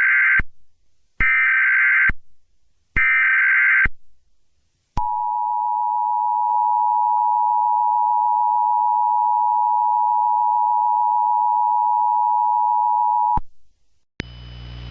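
Emergency Alert System header: three short bursts of shrill, warbling digital SAME data a second apart, then the EAS two-tone attention signal (853 and 960 Hz together) held steady for about eight seconds and cut off sharply. A low buzz fades in just before the end.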